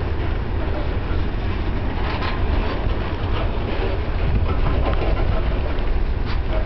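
Freight cars of a BNSF manifest train rolling past: a steady, loud rumble of steel wheels on rail, with scattered sharp clicks and clanks.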